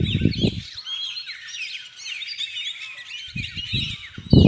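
A dense chorus of many birds chirping and calling at once, with short rapid high notes overlapping. Low rumbling sounds come in during the first second and again in the last second, the loudest of them near the end.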